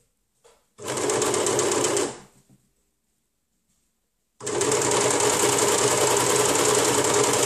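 Overlocker (serger) running in two spells: a short burst of about a second, then after a pause of about two seconds a longer steady run that is still going at the end. It is stitching a folded band onto a fabric edge.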